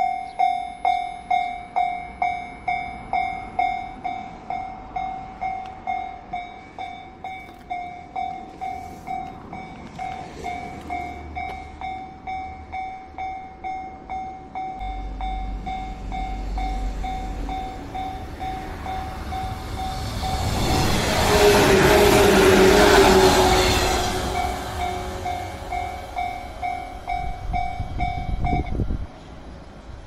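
Japanese level-crossing warning bell ringing about twice a second while an electric train approaches and rushes past over the crossing. The train is loudest about two thirds of the way in, and the bell stops shortly before the end.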